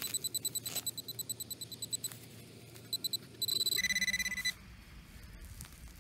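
Handheld metal-detecting pinpointer beeping in quick pulses, several a second, as it is probed through a dug turf plug, with soil and grass rustling under the hand. About halfway through it breaks into a louder steady tone for about a second, the sign that it has found the buried coin.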